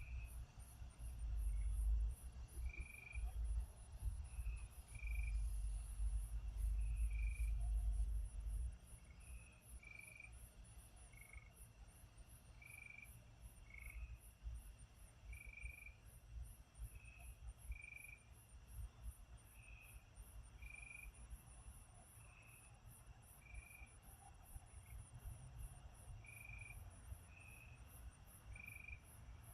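Crickets chirping in a steady, even rhythm of about three high chirps a second, with short lower notes from another insect or frog about once a second. A low rumble runs under them for the first eight seconds or so.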